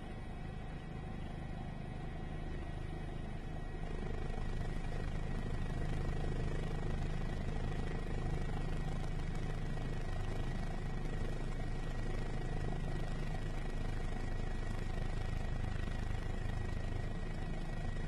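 Helicopter noise heard from aboard: a steady low drone with fast rhythmic rotor chop and a thin steady high whine, growing louder about four seconds in.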